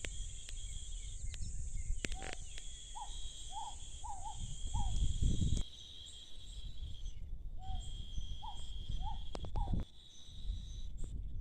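Outdoor insect chorus: crickets or cicadas droning steadily at two high pitches. Over it a bird gives short rising call notes in two runs of four or five, with a low rumble underneath and a few light clicks.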